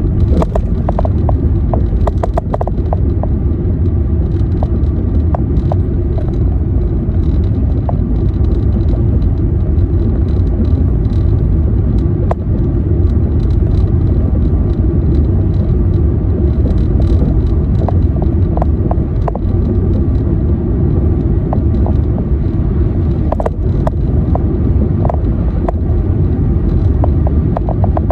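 Car driving, with a steady low road rumble and scattered light clicks and ticks.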